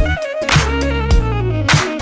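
Background music with a steady beat: drum hits about every half second over a bass line and a melody.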